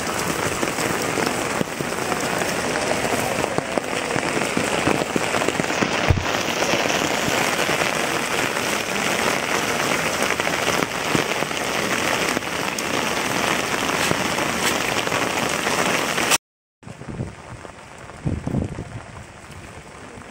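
Steady rain falling on floodwater, a dense even hiss. About three-quarters of the way through it cuts off abruptly, and softer rain follows.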